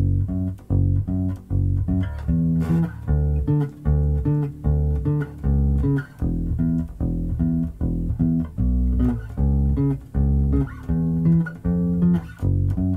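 Electric bass guitar tuned to drop D, played fingerstyle: a quick, even run of short, detached plucked notes in the low register, the pumping bass line with passing notes added.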